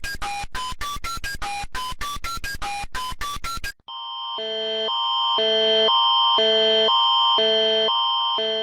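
Electronic emergency alert tones. First comes a quick run of short beeps stepping through several pitches, about five a second. Just before halfway it switches to a pulsing chord over a steady high tone, throbbing about once a second, which swells and then fades.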